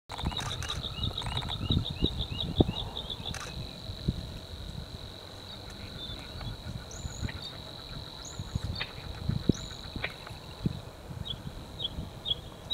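Bluethroat song: a rapid run of repeated high chirps, about six a second, at the start and again near the end, with a few short arched whistles in between. Under it runs a steady high thin whine, with low rumbles and thumps.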